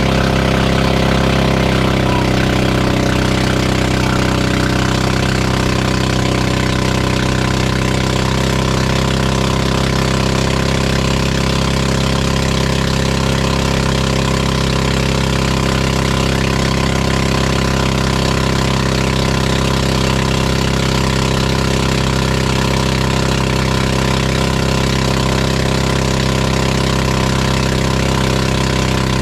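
Outrigger pump boat's engine running steadily and loud at cruising speed, under way.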